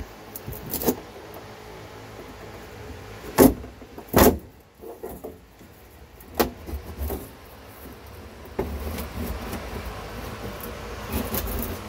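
A pry bar levering a thin wood wall panel off its stapled frame: several sharp cracks and knocks as the panel is pulled loose from its staples, the two loudest a little over three and four seconds in. About eight and a half seconds in, a steady low rumble sets in.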